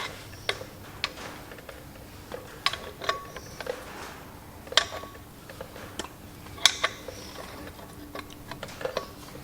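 Irregular metallic clicks and taps of a wrench working on the flywheel bolts and their lock tabs, with two sharper knocks about five seconds in and again near seven seconds.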